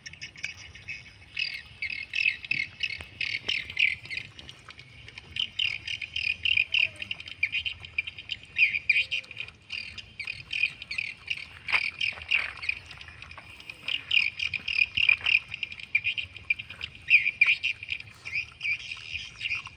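Birds chirping and squawking in rapid clusters of high notes, with faint clicks from a dog eating rice off a plastic plate.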